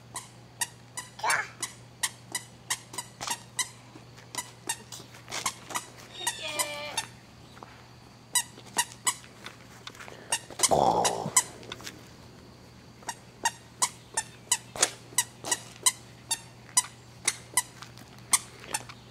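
Toddler's squeaky shoes squeaking with each step, a short sharp squeak two or three times a second with brief pauses. A brief louder noise comes about halfway through.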